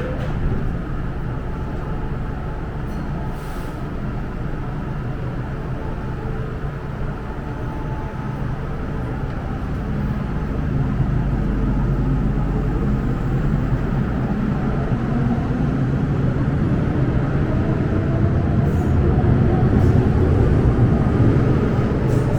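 MTR M-train EMU pulling out of the station. A low rumble builds about ten seconds in, then the traction motor whine rises steadily in pitch as the train accelerates.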